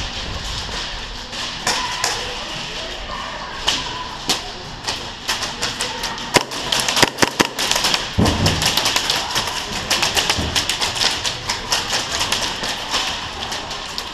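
Airsoft guns firing: sharp clicks and snaps in irregular bursts, few at first, then coming thick and fast from about a third of the way in.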